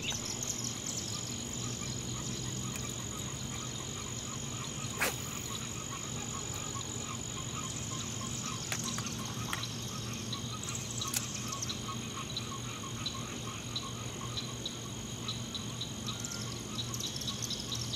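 Dusk chorus of frogs and insects: a steady high-pitched insect drone over rows of rapid, repeated calls. A single sharp click about five seconds in.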